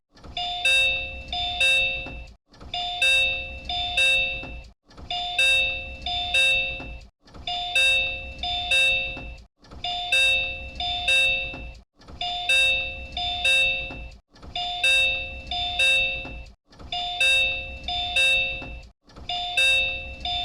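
Disney Resort Line Type 10 monorail door chime, the same chime as on JR Central trains: an electronic two-strike ding-dong repeated over and over, about every two and a half seconds, with a short gap between repeats. A low hum runs under each chime.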